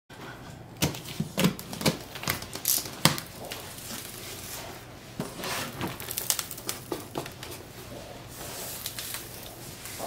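Cardboard box being opened by hand. A quick run of sharp crackles and knocks comes from about a second in to about three seconds, then softer rustling of the flaps around the middle.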